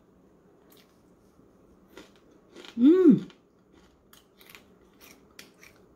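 A person chewing crispy stir-fried dried anchovies with walnuts, a string of crisp crunches starting about two seconds in. About three seconds in comes a short hummed "mmm" that rises and falls in pitch, the loudest sound.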